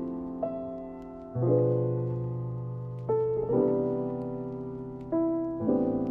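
Background piano music: slow chords, each struck and then fading, changing every second or two.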